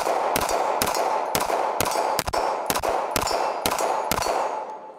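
CZ Shadow 2 Compact 9mm pistol fired in a fast string of about ten shots, roughly two a second, each shot trailing an echo. The firing stops a little after four seconds in and the echo dies away.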